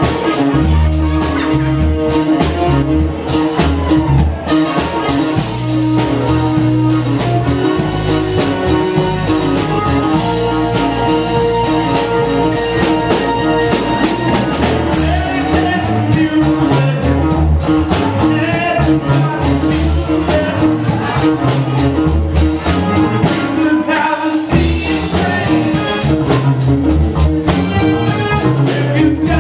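A live rock band plays at full volume: electric guitar, electric bass, keyboards and a drum kit keep a steady beat, heard through the room of a small club.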